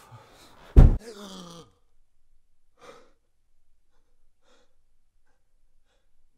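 A man groaning in distress, then a sudden loud thump about a second in with a falling tone trailing after it. A few faint gasping breaths follow.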